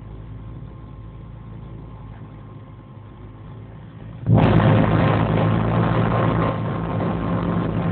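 Piper Chieftain's twin piston engines and propellers heard from inside the cabin. They run steadily at low power at first, then a little past halfway the sound jumps suddenly to a much louder, noisier run at high power, as for the takeoff roll.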